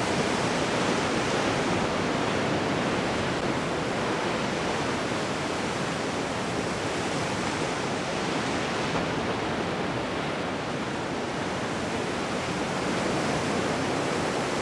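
Breaking waves and churning whitewater surf: a steady, even rush with no distinct breaks or crashes.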